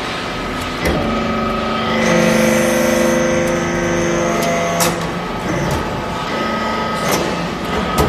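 Metal shavings baler running: a steady machine hum of several held tones, which changes and grows a little louder about two seconds in, with sharp metallic clanks about a second in, near five seconds and around seven seconds.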